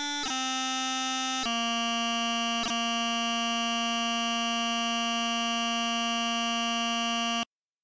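Computer-synthesized Highland bagpipe chanter, played back from bagpipe notation software, sounding the last notes of a tune: a couple of note changes with a quick grace note, then a long held final note that cuts off abruptly near the end.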